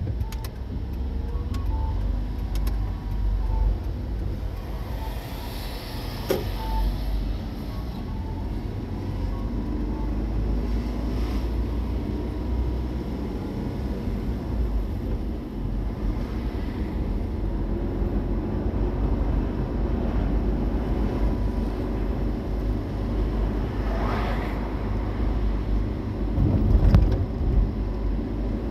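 A car driving along: a steady low rumble of engine and road noise, swelling briefly a few times.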